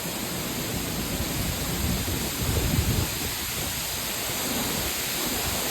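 Heavy waterfall pouring close by, a steady loud rush of falling water, with low rumbling swells a little before the middle.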